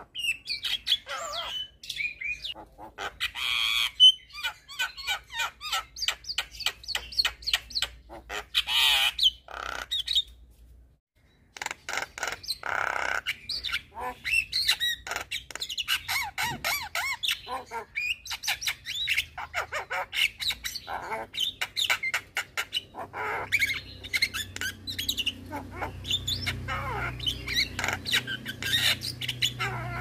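Javan myna (jalak kebo) singing its fast, varied chattering song of squawks, whistles and clicks, broken by a pause of about a second near a third of the way through.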